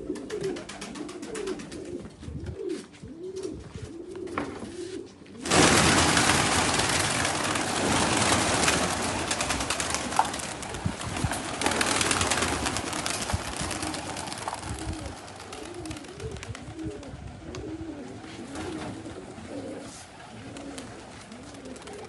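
Domestic pigeons cooing over and over in a loft. About five seconds in, a sudden loud rushing noise starts and slowly dies away over several seconds while the cooing carries on.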